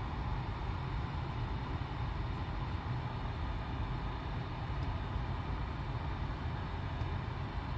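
Steady engine and road noise of a BMW X5 E53 heard from inside the cabin, deepest at the low end, with no music or speech over it.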